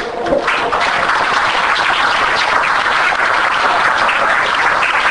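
Audience applauding: many hands clapping together, starting about half a second in and then steady.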